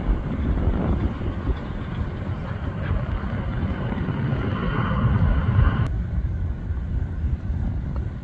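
Alaska Airlines Boeing 737 jet airliner landing, its engines heard as a distant rumble and hiss, with heavy wind buffeting on the microphone. The jet sound cuts off suddenly about six seconds in, leaving mostly low wind rumble.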